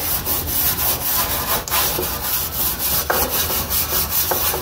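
A scrubber scrubbing the greasy metal interior of a gas grill's firebox in rapid, even back-and-forth strokes, working off grease loosened by degreaser.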